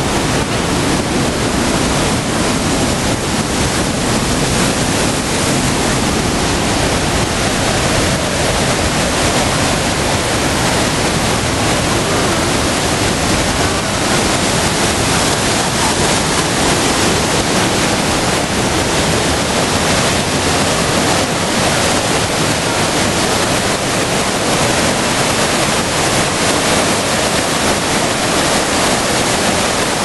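Loud, steady rush of the Upper Düden Waterfall and its churning white water.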